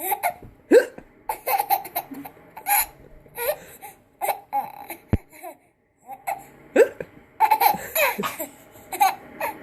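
Repeated hiccups mixed with laughter: a quick run of short vocal bursts that bend up and down in pitch, with a lull of under a second about five seconds in.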